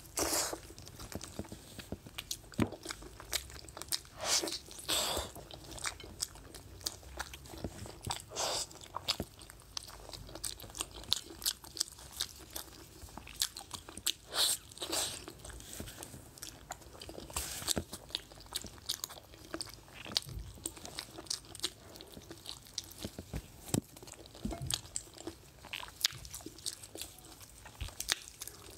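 A person biting and chewing pork trotters: a steady run of wet clicks and smacks from the skin and cartilage, with louder bites every few seconds.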